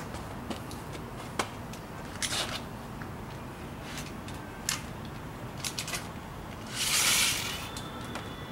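Reel measuring tape being handled: a few light clicks and rustles, then a longer hissing slide of the tape about seven seconds in, the loudest sound.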